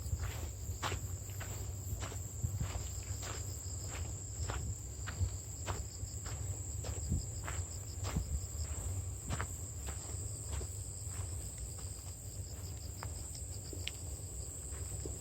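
Insects singing a steady, high-pitched trill, with footsteps at a walking pace and a low rumble underneath.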